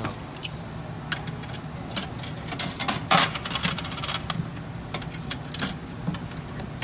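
Coins clinking and dropping through the coin mechanism of a Jolly Roger Woody Woodpecker fire engine kiddie ride: a string of irregular sharp metallic clicks and clatters, the busiest about three seconds in, over a low steady hum.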